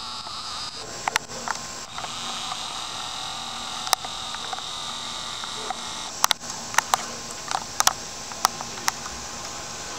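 A steady high-pitched hiss of a summer insect chorus, broken by about a dozen sharp clicks of a handheld camera being handled, several of them close together in the second half.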